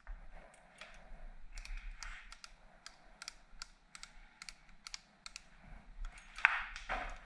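Light, uneven mechanical clicks, two or three a second, from a newly fitted ASV aftermarket motorcycle lever being worked and handled. There is one louder knock about six and a half seconds in.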